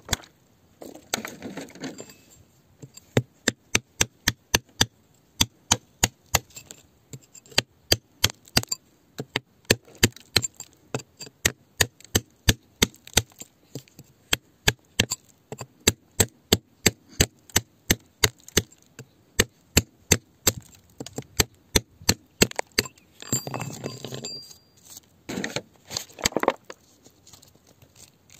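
A pointed rod striking and digging into hard, stony soil with sharp knocks about two or three a second. Water poured from a bottle into the hole makes longer rushing stretches near the start and again near the end.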